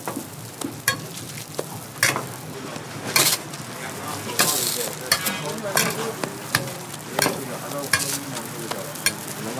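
A metal turner scraping and clacking on a flat steel griddle as hotteok are flipped and the hand presses are moved, in irregular sharp clacks and a few longer scrapes. The pancakes sizzle underneath on the oil-free griddle.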